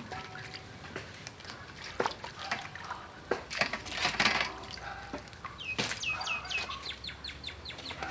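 Mud crabs being washed by hand in a metal bowl of water: splashing and dripping, with sharp knocks of shell against the bowl. Near the end a bird calls in a quick run of about ten short high notes.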